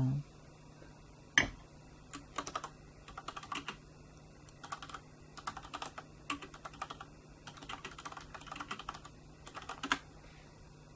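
Typing on a computer keyboard in short, irregular runs of keystrokes, with a louder single click about a second and a half in and another near the end.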